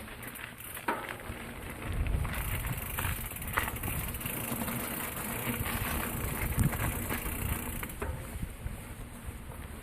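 Riding noise from a Kona Big Honzo steel hardtail on 27.5-plus tyres: tyres rolling with a steady hiss and wind rumbling on the microphone, the rumble growing about two seconds in. A few sharp clicks come through along the way.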